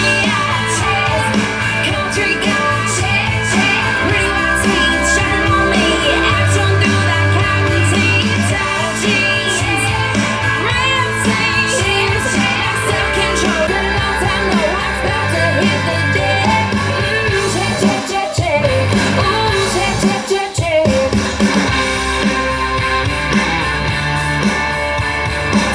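Rock song with singing, guitar and a strong bass line played through a compact powered PA speaker, with two brief breaks in the music in the last third.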